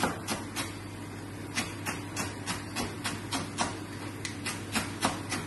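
A chef's knife chopping vegetables on a plastic cutting board, in quick, slightly irregular knocks of about three or four a second. A steady low hum runs underneath.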